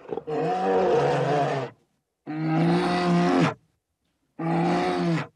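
Zebra calling: three long, loud braying calls, each a second or more, with short pauses between them.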